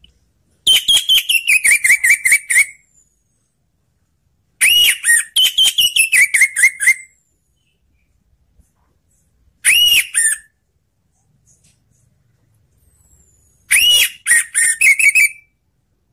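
Orange-headed thrush (anis merah) singing: four loud bursts of rapid whistled notes with pauses of a few seconds between them. The two longer bursts step down in pitch.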